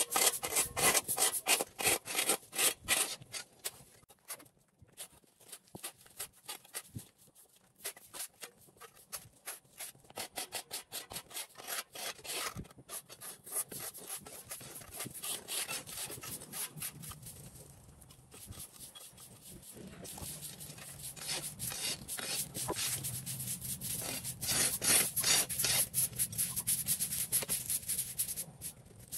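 Quick, repeated scraping strokes of a tool rubbing over a rough surface, in runs with short pauses now and then; a low hum joins about two-thirds of the way in.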